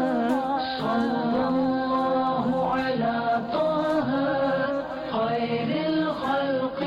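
Background Arabic nasheed: a solo voice singing a devotional melody in Arabic, praising the Prophet.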